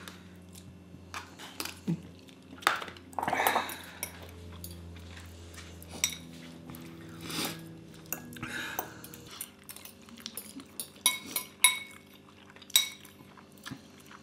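Metal forks and spoons clinking and scraping against a glass bowl and a ceramic bowl as noodles are stirred and eaten, in irregular clinks.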